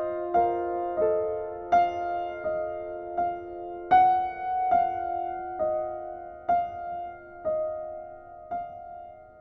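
Slow, gentle background piano music: single notes struck about one a second, each left ringing, fading away toward the end.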